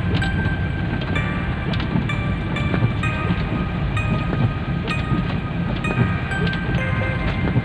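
Steady low rumble of a car driving in heavy rain, with short high tones and scattered clicks over it.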